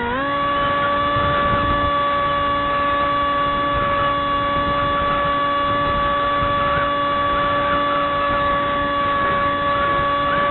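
Radio-controlled model aircraft's motor and propeller running at steady high throttle, heard from an onboard camera: an even whining tone that steps up in pitch right at the start as the throttle opens and rises slightly again near the end, with wind rush on the microphone.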